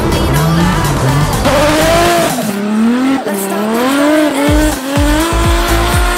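Drift car engine revving up and down with tyre squeal, over background music.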